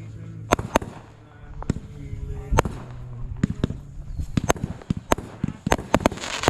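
Fireworks going off: a rapid, irregular string of sharp bangs and pops, with a burst of crackling starting near the end.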